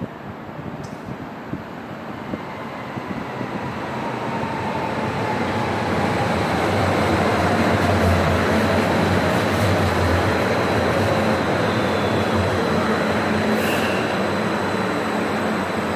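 Stuttgart Stadtbahn light-rail train approaching on the tracks. Its running noise grows louder over the first six seconds and then holds steady, with a faint whine that slowly falls in pitch.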